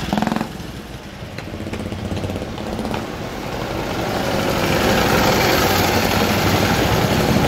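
Vintage motorcycle engines running as the bikes ride past one after another. One passing engine drops away about half a second in, then another grows steadily louder as it approaches over the next few seconds.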